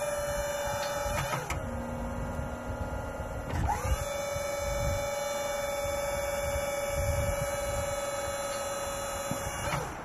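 Wood-Mizer LT70 portable sawmill running with a steady pitched whine. About a second in the machine winds down to a lower pitch, and a couple of seconds later it speeds back up and runs steady until it starts to wind down again near the end.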